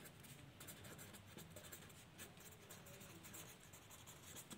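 Pen scratching faintly on lined paper as words are written by hand, in short uneven strokes.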